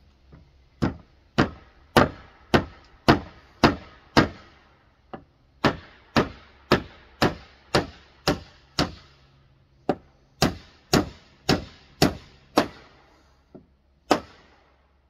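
Hammer blows nailing wooden boards: sharp strikes about two a second, in three runs of six or seven blows with short pauses between, and one last blow near the end.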